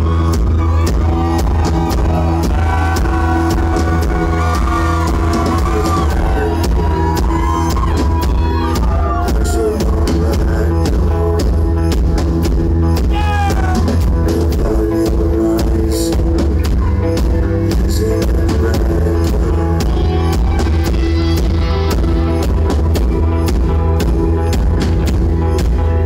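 Rock band playing live: a drum kit keeping a steady beat under electric guitars.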